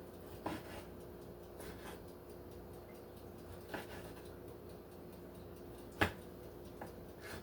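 Serrated bread knife cutting tomatoes on a cutting board, with a few scattered knocks of the blade against the board, the loudest about six seconds in. A faint steady hum runs underneath.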